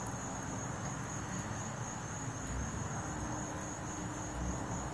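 A steady, high-pitched insect trill, typical of crickets, over a background hiss.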